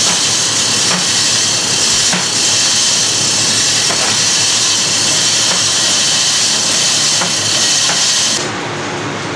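Loud steady hiss, like rushing air, with a few faint ticks. It cuts off suddenly near the end to a quieter, duller steady hum.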